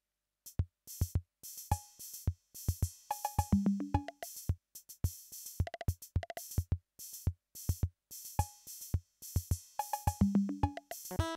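Roland CR-5000 drum machine playing a rhythm of kick drum, hi-hat and cymbal hits with short tuned drum notes. Just before the end a Polivoks analog synthesizer comes in with sustained pitched notes.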